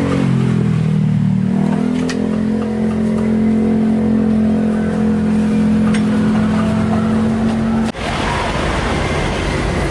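An engine running steadily, its pitch dropping and settling in the first two seconds, with a couple of sharp clinks of the spatula against the iron wok. The engine hum cuts off abruptly about eight seconds in, giving way to an even rushing noise.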